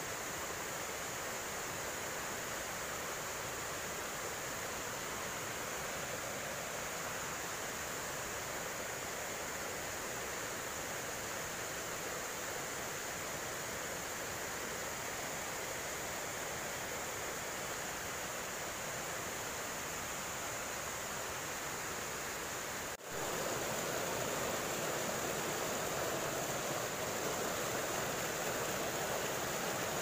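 Water rushing over the boulders of a rocky forest stream in small cascades, a steady noise. About 23 s in it drops out for an instant and comes back a little louder.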